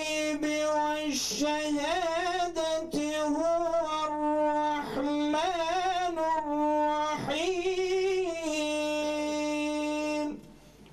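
A man's voice reciting the Qur'an in melodic tajwid style, holding long notes with wavering, ornamented turns. The recitation stops about ten seconds in.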